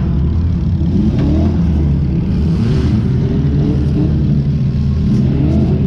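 Compact demolition derby car's engine running loudly with a few revs that rise and fall, heard from on board the car.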